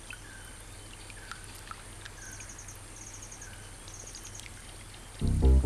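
Quiet wetland ambience with scattered short, falling chirps and three brief, fast high trills from small animals. Music comes in loudly near the end with low sustained notes.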